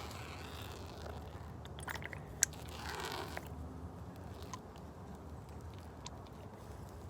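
Faint handling of homemade slime: soft crackles and squishes, with a sharp click about two and a half seconds in.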